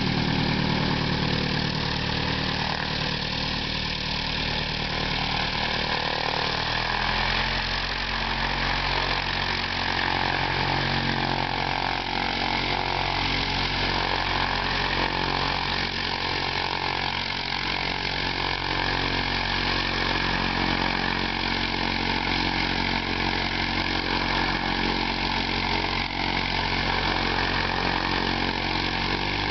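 Cessna 172's piston engine and propeller running steadily at low taxi power. About seven seconds in, the engine note drops a little and then holds steady.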